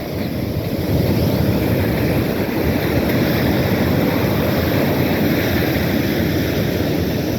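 Ocean surf washing up the beach in a steady rush of noise, with wind buffeting the microphone.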